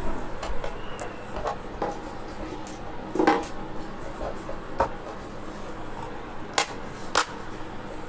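Scattered clicks and knocks of small hard parts and tools being handled, with a short clatter about three seconds in and a few sharp clicks toward the end.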